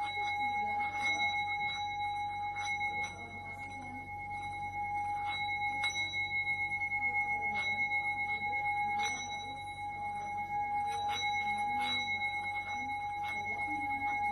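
Metal singing bowl played with a mallet, holding one steady ringing tone whose loudness wavers. Light clicks of the mallet on the rim come every second or two.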